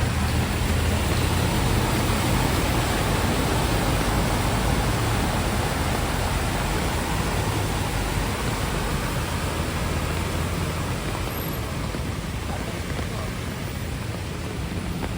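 Heavy rain falling steadily, with a low rumble of vehicle traffic that eases off near the end.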